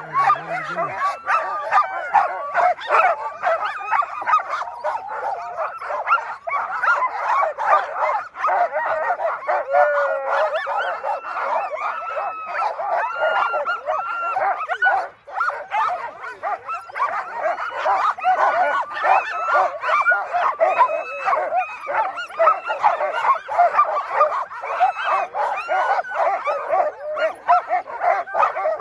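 A team of harnessed sled dogs barking, yipping and howling all at once in a dense, unbroken din: dogs held back at a race start, eager to run.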